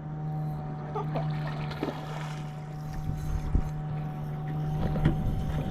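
A boat's motor running steadily with a constant low hum, with a few light knocks over it.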